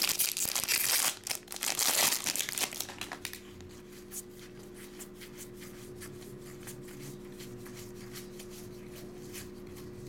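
A foil trading-card pack wrapper crinkling as it is torn open and crumpled, loud for the first three seconds, then light ticks of cards being handled over a faint steady hum.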